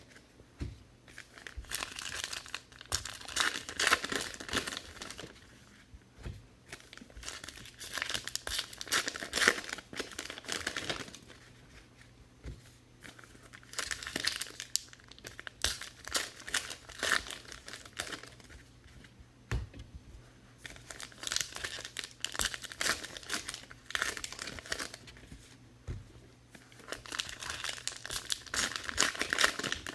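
Foil trading-card pack wrappers being torn open and crinkled, in about five bursts of a few seconds each with quieter gaps between.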